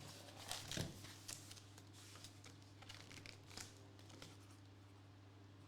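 Faint rustling and crinkling of packaging being handled, with a few soft clicks over a low steady hum; the handling dies away near the end.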